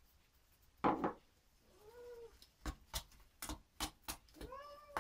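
Domestic cat meowing twice, complaining, each meow rising and falling in pitch, about two seconds in and near the end. In between come a loud knock about a second in and several short sharp clicks of a spatula against a stainless steel mixing bowl.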